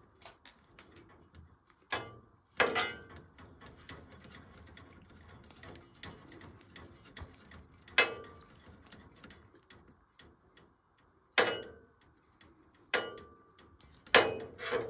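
Scattered sharp clicks and clacks from hand tools and electrical wire being handled, about six louder ones spread through, with faint ticking between them.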